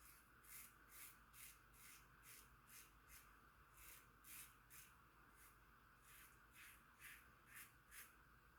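Vintage GEM push-button single-edge safety razor scraping through stubble in short, quiet strokes, about two or three a second.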